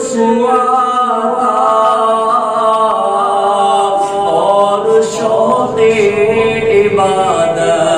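A man singing an unaccompanied Urdu naat, an alvida bidding farewell to Ramadan, holding long, sliding, ornamented notes with no instruments.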